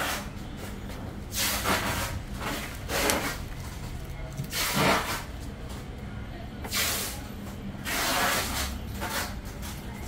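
A folding electric wheelchair being handled and folded: several short bursts of rustling and knocking from its frame and plastic wrapping.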